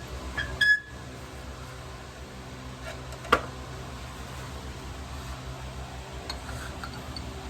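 Hand work fitting a leaf-spring shackle bolt: a couple of short high squeaks near the start, then a single sharp metal clank about three seconds in, over a steady low hum.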